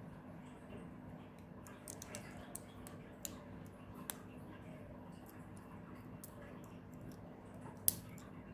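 Small plastic LEGO-style bricks clicking as they are handled and pressed together: scattered light clicks, with one sharper click near the end.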